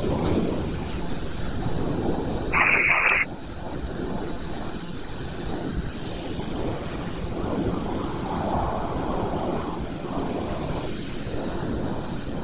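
Wind buffeting the microphone of a body-worn camera, with rustling as it moves through tall grass, and a short burst of radio static about three seconds in.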